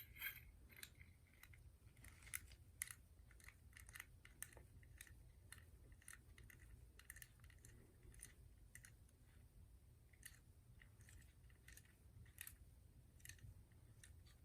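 Faint, irregular clicks and light taps of a Zippo lighter's small metal parts being handled as it is put back together and its flint spring loaded.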